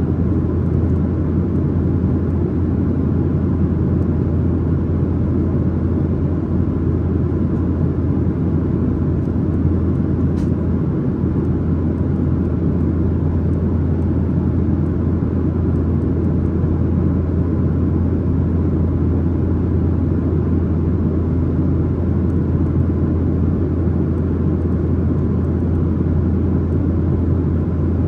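Steady in-flight cabin noise of a Boeing 737-900ER: the constant rumble of its CFM56-7B engines and rushing air, with a deep, even hum, heard from inside the main cabin.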